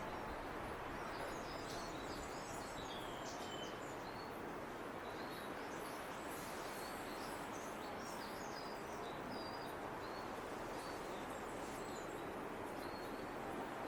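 Faint songbird song: short, thin, high phrases scattered throughout, over a steady background hiss of outdoor noise.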